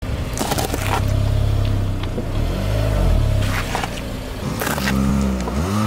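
Car engine running slowly as its tyre rolls over raw potatoes, with a few sharp crunches as they split and flatten. The engine's pitch rises and falls near the middle and again near the end.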